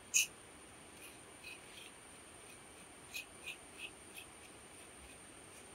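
Faint, steady, high-pitched drone of insects. Over it come a few short, light scratching ticks, the first just after the start and a cluster between about three and four seconds in.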